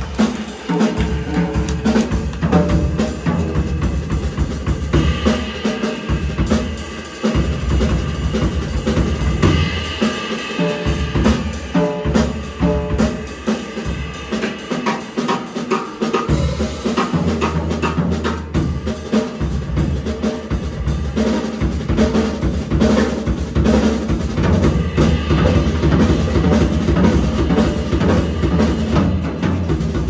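Live jazz band playing an instrumental passage, the drum kit to the fore with busy snare, rimshot and bass-drum hits, over piano and bass.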